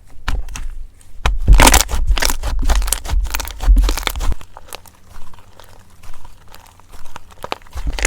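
Slime being squeezed and pressed, a dense run of small clicks and pops, loudest from about one to four seconds in, quieter through the middle and picking up again near the end.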